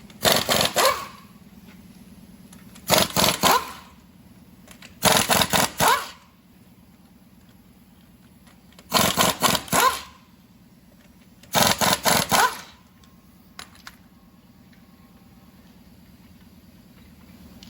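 Impact wrench fired in five bursts of about a second each, spaced a few seconds apart. Each burst is a rapid hammering that ends with the motor whining down. A low steady hum runs underneath.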